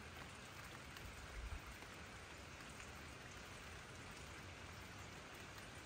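Light rain falling on grass and wet pavement, a faint, steady hiss, with a brief low bump about one and a half seconds in.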